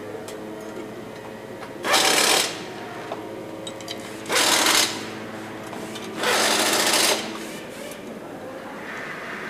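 A power tool on a motorcycle assembly line, running in three short bursts of under a second each, over a steady hum of factory machinery.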